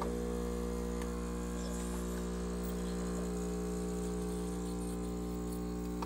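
Casabrews 20-bar espresso machine's vibration pump humming steadily while pulling a double shot of espresso; it starts abruptly.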